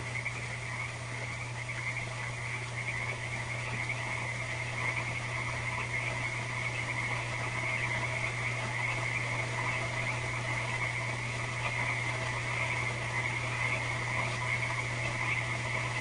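A night chorus of many frogs calling continuously, a dense high-pitched chatter with no break, over a steady low hum.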